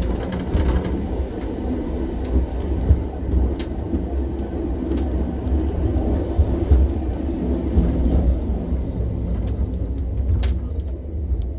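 Tram running along the track: a steady low rumble with scattered clicks and knocks from the wheels and rails.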